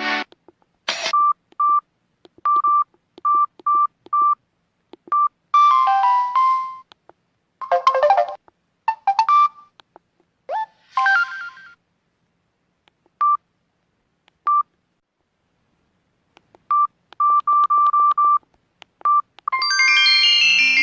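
Samsung SGH-M620 mobile phone's speaker: many short, single-pitch keypad beeps as its menus are stepped through, broken by a few brief tone clips about five, eight, nine and eleven seconds in. A new ringtone melody starts near the end.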